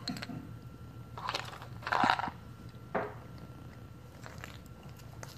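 A few short crunching, clattering sounds, the loudest about two seconds in: Melissa & Doug toy food pieces being picked out of a plastic bowl in pretend eating.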